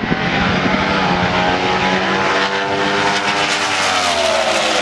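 Two Junior Fuel dragsters' naturally aspirated small-block alcohol engines running at full throttle down the drag strip, their pitch falling slowly as they pull away.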